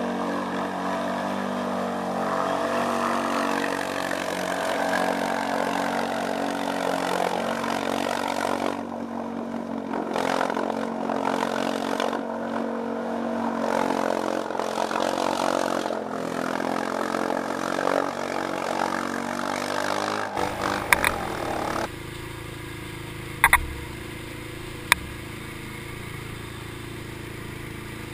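Arctic Cat 700 ATV engine running hard and revving as it ploughs through deep flood water. About 20 seconds in, the sound cuts to a quieter, steadier rumble broken by a few sharp knocks.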